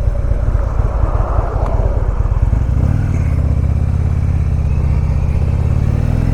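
Harley-Davidson Electra Glide Ultra Limited's V-twin engine running as the bike rides, with wind rushing over the microphone. About three seconds in, the wind noise eases and the steady engine note comes through more plainly.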